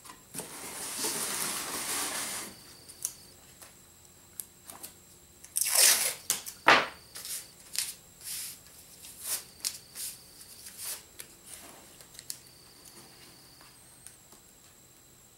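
Masking tape being unrolled with a long rasping peel, then a couple of sharp rips as it is torn off, followed by scattered small crinkles and taps as it is pressed down along a model rocket's fin and cardboard body tube.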